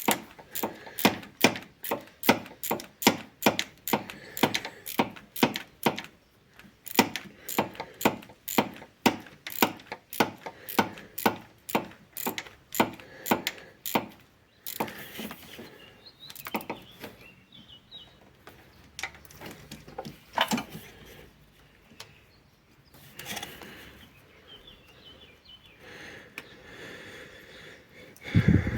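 Hand-tool work on the engine during reassembly: a steady run of sharp mechanical clicks, about two a second, for roughly the first half, then scattered quieter clicks and knocks.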